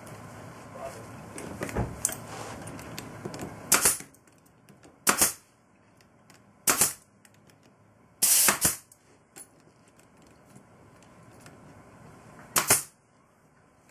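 Pneumatic brad nailer firing brads into wood: about five sharp shots a second or more apart, one near the middle a little longer than the rest. Light handling and knocking of the wooden parts comes before the first shot.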